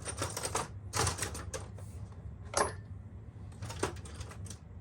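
Screwdrivers clattering and clicking as they are handled and set into a plastic drawer organizer, in several short bunches of sharp clicks with gaps between.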